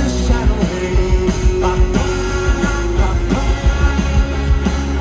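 Indie rock band playing live through a festival sound system: drums hitting steadily under electric guitars and bass, with singing.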